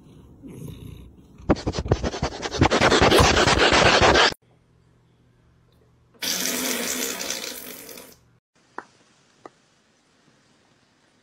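Rushing, water-like noise in two stretches: a loud rush of about three seconds that cuts off abruptly, then a shorter one that fades out. Two small clicks follow.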